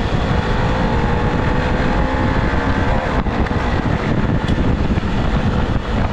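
Off-road motorcycle engine running at a steady pace, its pitch drifting only slightly, under heavy wind buffeting on the microphone.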